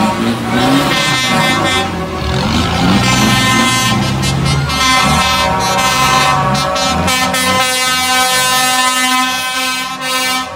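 Lorry air horns sounding in long overlapping blasts as a convoy of tractor units drives past, the horn notes changing as one horn takes over from another. Underneath, the diesel engines run with their pitch rising and falling in the first few seconds.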